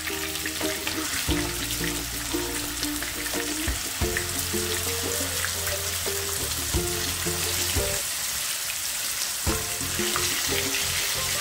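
Marinated chicken legs sizzling and crackling as they fry in hot coconut oil with curry leaves, with background music playing over it.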